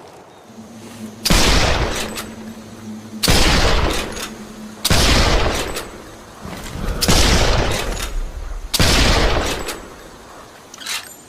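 Five loud shots from a Mosin-Nagant bolt-action rifle, 7.62×54R, spaced about two seconds apart. Each shot trails off in a long echoing rumble.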